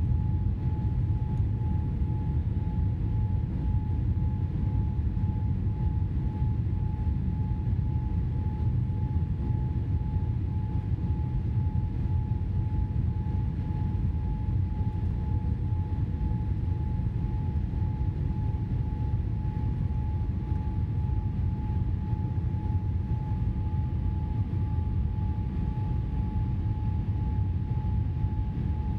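Steady cabin noise inside a Boeing 787-8 descending on approach to land: a dense low rumble of airflow and engines, with a thin steady whine above it.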